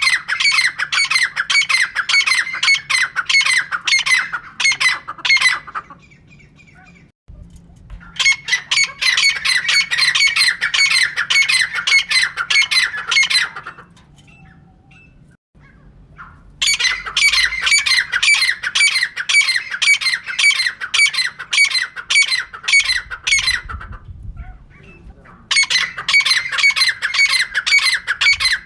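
Female teetar (francolin) calling in long runs of rapid, repeated harsh notes, about three a second. Each run lasts six to seven seconds, with short pauses between runs: one run is already going at the start, two full runs follow, and a fourth begins near the end.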